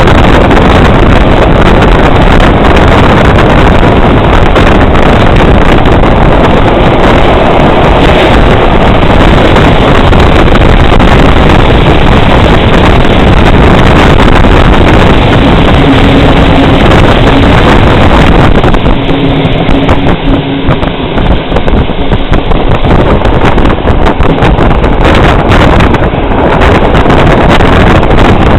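Heavy wind buffeting on the microphone held out of a moving train's window, mixed with the train's running noise, loud and nearly constant; it eases a little about two-thirds of the way through. A short low steady hum shows twice around the middle.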